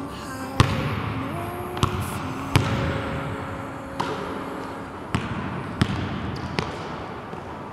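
Basketball bouncing on a hardwood gym floor during dribbling drills: about seven sharp bounces at uneven intervals of roughly a second, each with a short echo.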